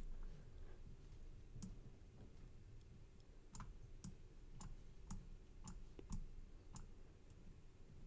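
Faint computer mouse clicks, scattered at first, then a regular run of about two a second.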